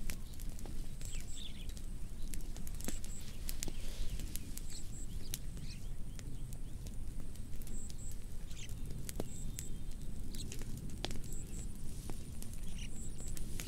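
Wood fire crackling, with irregular sharp pops over a low steady rumble. A faint high double chirp repeats every couple of seconds in the background.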